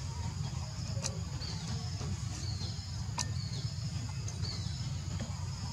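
Outdoor background: a steady low rumble under an even high-pitched drone, with short falling chirps about once a second and two sharp clicks.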